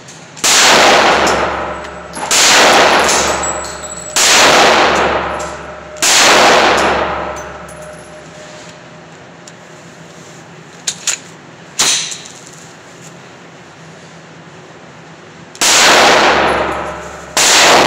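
9mm Glock 19 in an MCK chassis firing single shots in a concrete-block room, each shot echoing for over a second. Four shots come about two seconds apart, then a pause with a few small clicks, then two more shots near the end.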